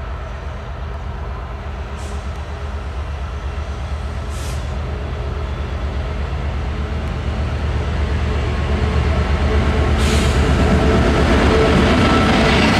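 Diesel freight locomotive's engine running under power as the train approaches, a steady low drone that grows steadily louder, with rail and wheel noise building up. A few short hisses are heard along the way.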